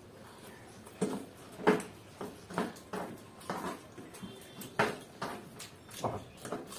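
Two people slurping and chewing egg noodles off forks: a string of short, wet slurps and mouth sounds, about one or two a second, the loudest a little under two seconds in.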